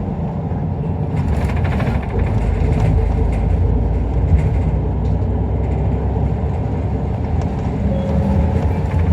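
Inside an Isuzu Erga Mio one-step city bus under way: the diesel engine runs with road rumble, and the cabin rattles briefly about one and a half seconds in.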